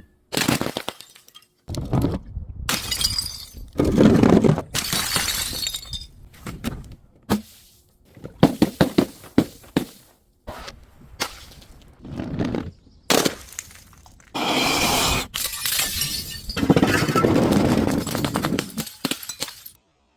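Glass bottles and other brittle objects being crushed and shattering, with cracking and crunching. The sound comes in a series of short segments, each cut off abruptly.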